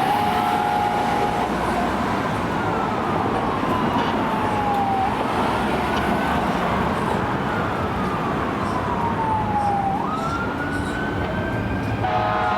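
Fire engine's air horn blasting for the first second or so, then its siren wailing in slow rising and falling sweeps. The air horn sounds again near the end.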